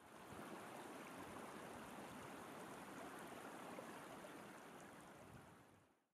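Faint sound of running water, like a stream, fading out near the end.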